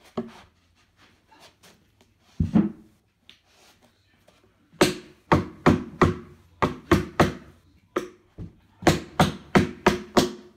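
Hand striking a particleboard IKEA Kallax shelf panel to knock it into place: a few single knocks, then two quick runs of sharp knocks, about three a second.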